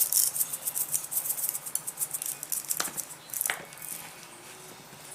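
A shaker of McCormick Montreal Steak Seasoning rattling in fast, rapid shakes as the coarse rub is shaken over raw bone-in ribeyes. The shaking stops about three and a half seconds in.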